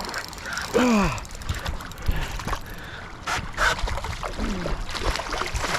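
Scattered knocks and splashing as a large striped bass is netted and lifted into the boat, with a man's short falling-pitched exclamation about a second in.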